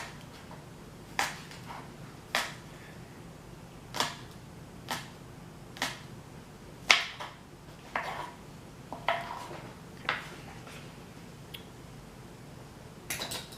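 A kitchen knife striking a cutting board while chopping green onions: about a dozen sharp clicks, roughly one a second and unevenly spaced.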